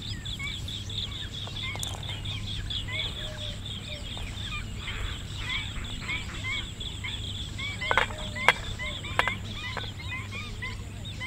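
Many birds chirping, short repeated calls overlapping one another, over a low steady hum. About eight seconds in, three sharp clicks as pieces of chopped garlic are tipped from a plate into a metal bowl.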